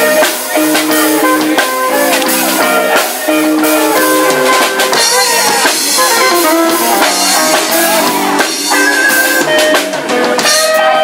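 Live band of electric guitar, electric bass and drum kit playing an instrumental passage, with the guitar taking sustained lead notes over a steady drum beat.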